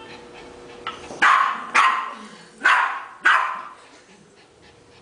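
Yorkshire terrier barking four times, in two quick pairs.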